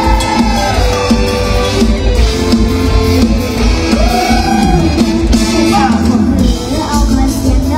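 Live mor lam band music played loud through a PA, with a steady drum beat and singers' voices gliding over it.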